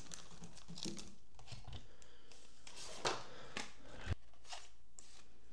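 Faint rustling and a few light taps and scrapes of packaging being handled: a plastic bag set aside and a small cardboard accessory box slid open, with the sharpest handling sounds about three to four seconds in.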